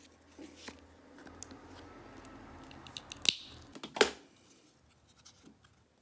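Handling sounds from hands moving a clay piece and small art supplies on a tabletop: light taps and scrapes, with two sharp clicks a little over three and four seconds in.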